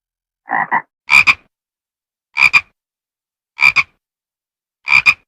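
Frog-croak sound effect from an old cartoon: five short two-part croaks, about one every second and a quarter, the first duller than the brighter ones that follow.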